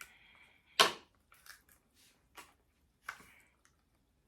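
Handling noises: a few short knocks and rustles, the loudest about a second in.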